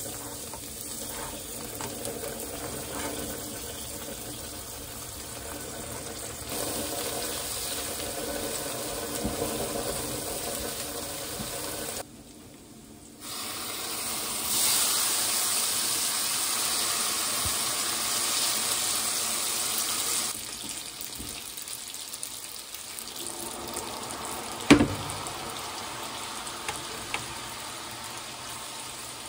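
Minced garlic sizzling in oil in a stainless-steel frying pan. Just past the middle, drained spaghetti is tipped in from a colander insert, bringing a louder rush of sizzling and splashing water for several seconds. Then stirring, with one sharp knock near the end.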